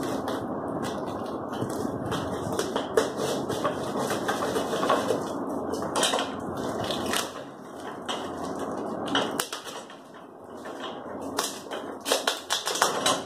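Cardboard courier box being cut with scissors and torn open by hand: packing tape and cardboard crackling and scraping with many small clicks, quieter for a couple of seconds, then sharper crackles near the end as the flaps and plastic wrapping are pulled.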